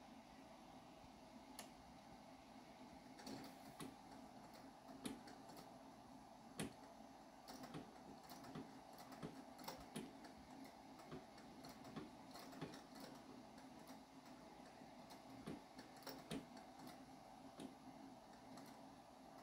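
Singer treadle sewing machine from 1891 running slowly as fabric is stitched, its needle mechanism making faint, irregular clicks.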